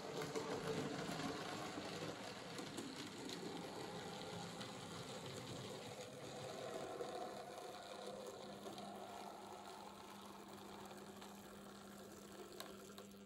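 Model locomotive on a Minitrix 0-6-0 chassis running: a steady whir from its small electric motor and gears, with the wheels rattling over the rails. The sound cuts off suddenly at the end.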